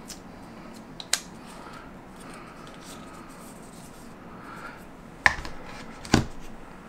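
Quiet room tone broken by a few sharp clicks of hands handling the AirPods Pro charging case and its cardboard packaging tray: one light click about a second in, then two louder ones near the end as the case is taken hold of.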